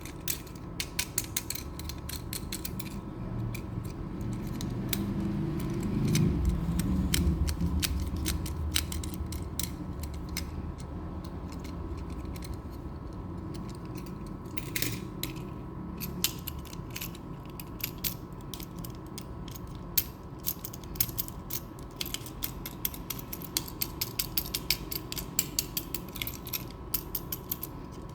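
Small moving parts of miniature diecast toy construction vehicles clicking and ratcheting as they are worked by hand, in quick runs of clicks. A low rumble swells about four seconds in and fades a few seconds later.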